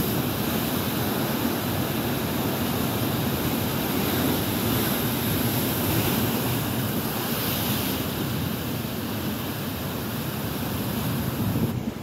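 Waves and white water rushing in the rocky gorge, with wind on the microphone: a steady rushing noise that shifts abruptly just before the end.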